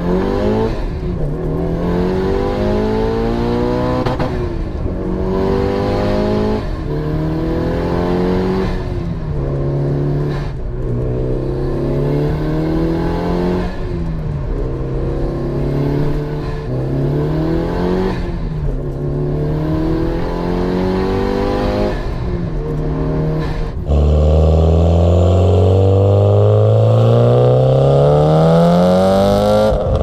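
Mitsubishi Lancer Evolution VIII GSR's turbocharged 2.0-litre four-cylinder, rated at 380 hp, heard from inside the cabin as it accelerates hard. The revs climb and drop again and again at each gear change. About 24 seconds in it turns louder, heard from the exhaust, with one long rising pull.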